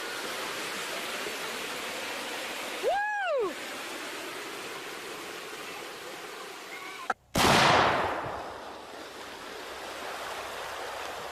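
Steady rushing water. About three seconds in comes a short high rising-then-falling cry. After an abrupt cut, a loud sudden burst of water surges and fades over a second or two.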